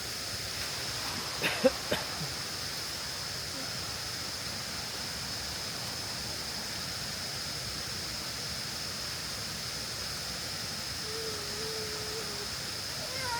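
Forest ambience of steadily rushing stream water with a constant high-pitched hum over it. A couple of sharp knocks come about a second and a half in, and a short wavering tone is heard near the end.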